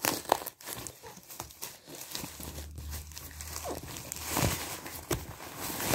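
Thin plastic mailing bag crinkling and tearing as hands pull it off a cardboard box, a continuous run of crackles and rustles.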